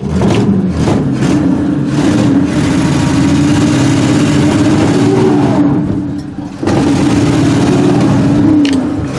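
A 1968 Chevrolet pickup's engine, unstarted for fifteen years, catching and firing unevenly for the first couple of seconds, then revving steadily. It drops off briefly about six seconds in and picks up again.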